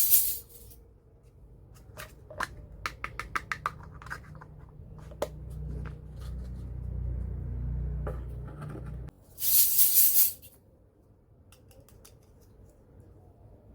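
Small plastic and metal toy kitchen pieces being handled: a quick run of light clicks and taps, a low rumble, and about a second of loud hissing near the end.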